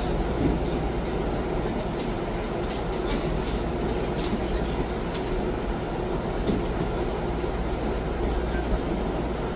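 Steady low rumble with a faint hum, over which come scattered soft taps and scuffs of bodies and hands on training mats as partners drill grappling.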